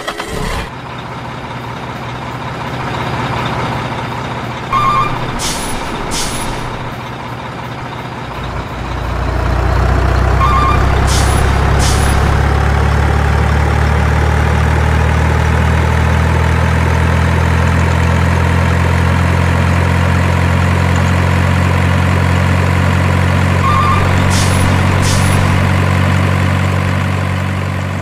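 Heavy diesel truck engine running, louder from about nine seconds in, with a short air-brake hiss given in pairs three times, each after a quick set of beeps. This is a dubbed truck sound effect laid over toy trucks.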